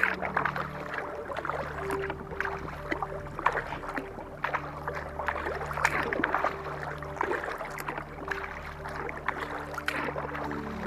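Kayak paddle strokes dipping and splashing in calm water at an uneven pace, under soft background music with long held notes.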